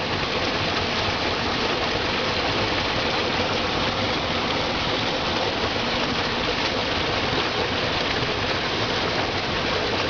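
Small waterfall pouring into a rocky pool: a steady rush of falling water.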